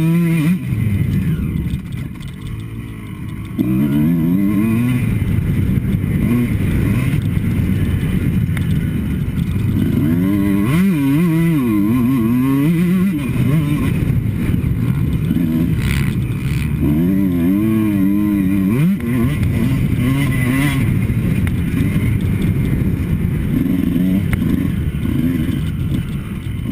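Two-stroke Kawasaki KX motocross bike heard from a helmet-mounted camera, its engine revving up and down repeatedly as the throttle is worked through the gears, with wind rush over the helmet. About two seconds in, the engine drops off briefly and then comes back on hard.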